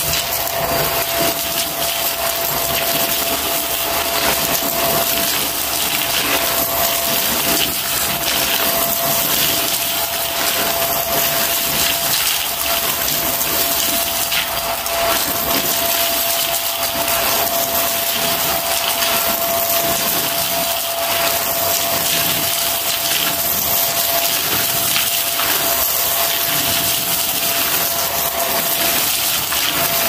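Corded stick vacuum running steadily with a constant whine while sucking up confetti from carpet. A dense crunchy crackle comes from the pieces rattling up through the head into the clear dust cup.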